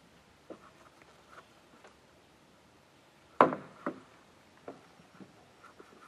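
Scattered light taps and clicks, with one sharp, loud knock about three and a half seconds in and a second, smaller knock half a second later.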